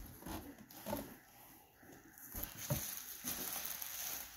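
Bubble-wrap packing plastic rustling and crinkling as it is lifted out of a cardboard box, with a few light taps. The crinkling grows steadier in the second half.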